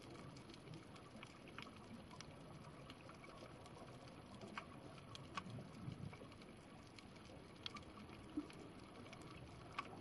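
Faint underwater reef ambience: a low rumble with a dozen or so sharp clicks scattered irregularly through it, the sharpest near the end, the kind of crackle snapping shrimp make on a coral reef.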